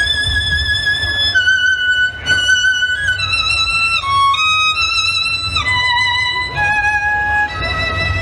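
Solo violin playing a slow melody of long held notes with vibrato, stepping downward toward the end, over a steady low rumble.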